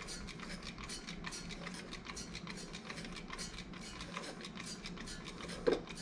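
Applicator rubbing olive oil around the inside of a stainless steel Instant Pot inner pot: quick, light scraping strokes several times a second over a steady low hum, with one short louder squeak or knock near the end.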